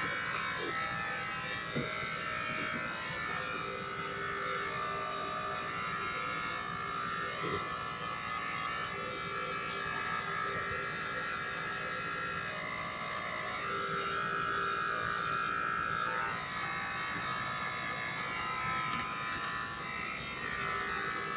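Electric pet hair clipper running steadily with a continuous buzz while trimming a dog's fur.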